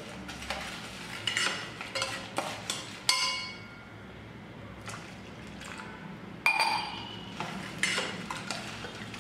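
Steel spoon stirring lumps of jaggery in water in a stainless steel pot: sloshing water with light scrapes and clinks of the spoon against the pot. Two louder ringing clinks come about three seconds in and again about six and a half seconds in.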